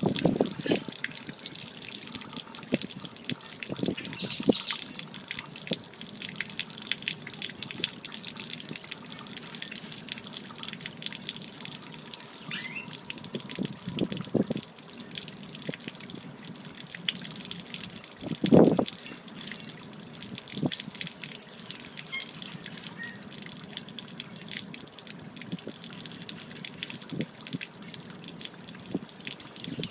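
Water that has collected in a Mako Pro Skiff's hull draining through the open transom drain, a thin steady stream splattering onto pavement. One louder thump partway through.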